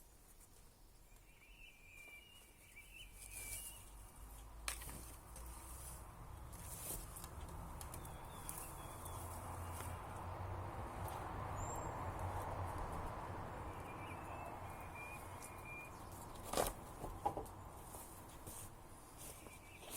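Outdoor ambience with a few short bird chirps, a rush of noise that slowly swells and fades, and a few sharp knocks or crackles near the end.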